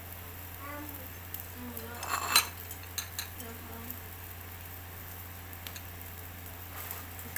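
Beef satay skewers grilling over charcoal, with a faint, steady crackle and small ticks. A short, loud clatter about two seconds in.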